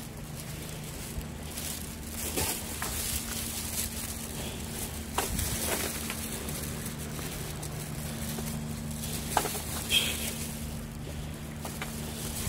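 Footsteps and shoe scuffs on rocks, with a few sharper knocks, over a steady low hum.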